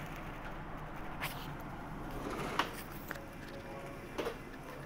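Steady low rumble and hum inside a Bombardier-built SEPTA Regional Rail passenger coach, with a few scattered sharp knocks and clunks, the loudest about two and a half seconds in.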